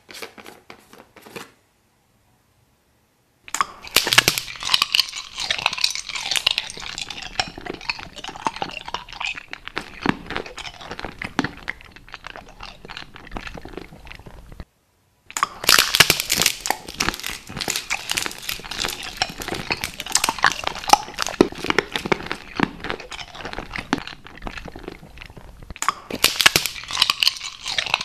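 Dense, close-miked crunching and crackling, full of sharp clicks, in two long stretches split by a brief dead-silent cut about halfway through, after a couple of seconds of silence at the start.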